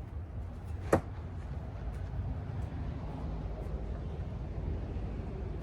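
A thrown fixed-blade knife landing with a single sharp hit about a second in, with no lasting bell ring after it, over a steady low outdoor rumble.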